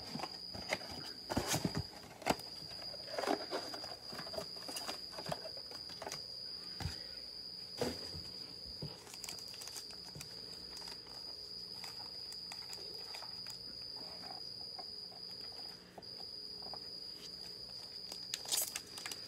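A cricket chirping in a continuous high trill that breaks off briefly a few times. Over it come the scattered taps, scrapes and crinkles of a cardboard box being opened and foil card packs being handled.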